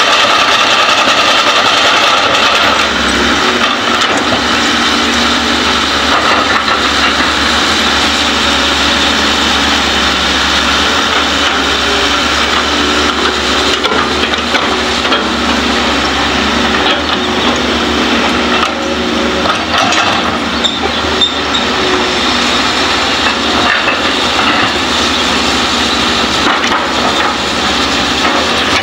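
Two hydraulic excavators, a Kobelco and a Hitachi, running steadily, their diesel engines and hydraulics working as the buckets dig into a soil pile, with scraping, crunching and occasional sharp cracks.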